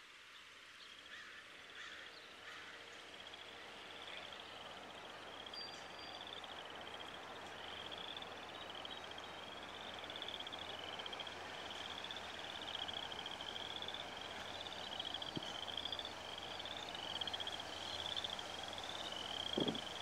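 Frogs calling in a chorus: short, pulsing trills repeat about once a second and grow louder, with a few faint bird chirps over a steady outdoor hiss.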